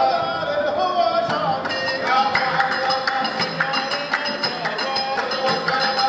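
Music: a melody line that slides in pitch, joined about two seconds in by a quick, steady percussion beat with a jingling, tambourine-like sound.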